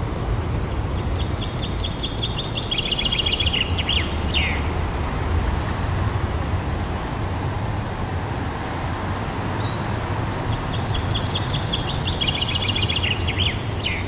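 Wind rumbling on the microphone, with a small songbird singing twice: a fast trill of repeated high notes ending in a quick downward flourish, about a second in and again from about halfway.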